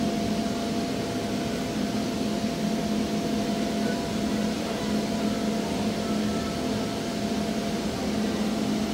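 A steady mechanical drone with a low, even hum and a fainter higher tone over it, the sound of a fan or air-handling machine running.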